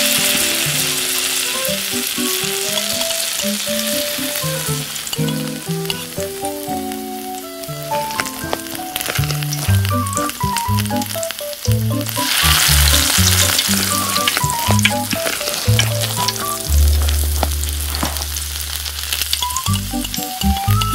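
Rice noodles and sauce sizzling in a miniature steel wok while they are stirred, with light clicks and scrapes of the small metal utensil against the pan. The sizzle is loudest at the start and again about halfway through, over a background music melody.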